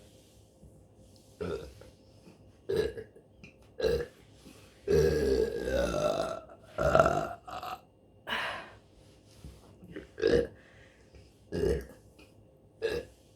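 A woman burping repeatedly: about ten separate burps, mostly short. About five seconds in comes one long, drawn-out burp of over a second that rises in pitch.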